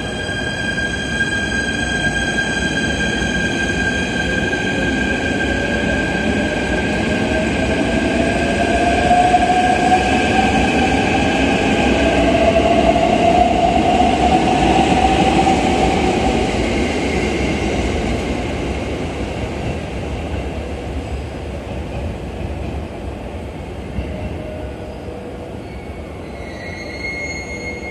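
JR East E129 series electric train pulling out and passing close by: a steady rumble of the running gear with several steady high tones, and a whine that rises in pitch as it gathers speed, loudest about ten to fifteen seconds in, then fading as the train pulls away.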